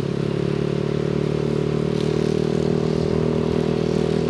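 Yamaha NMAX 155 scooter's single-cylinder engine running at a steady cruising speed, its pitch holding level.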